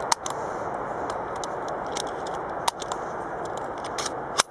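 Steady outdoor background noise with a handful of sharp clicks and knocks, the loudest just after the start and near the end.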